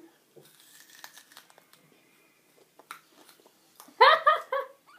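Faint crunching and clicking of raw onion being bitten and chewed, then a short burst of a girl's giggling about four seconds in.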